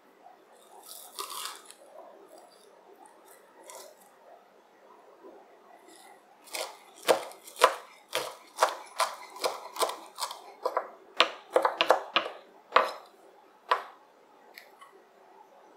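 Kitchen knife chopping spring onions on a wooden cutting board: a quick, uneven run of sharp knife strikes that starts about six seconds in and stops near the end, after soft rustling as the bunch is handled.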